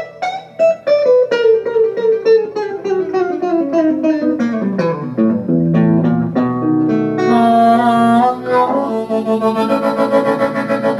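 Live instrumental break: a picked guitar runs down a quick descending line of notes, then a harmonica comes in with held chords about seven seconds in, over upright bass.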